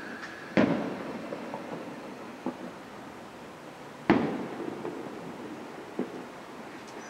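Aerial firework shells bursting overhead. Two loud booms come about three and a half seconds apart, each with a long fading rumble of echo, and fainter thuds fall between them.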